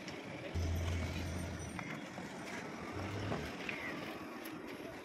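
Steady low background rumble with a low hum that swells twice, and a few faint clicks.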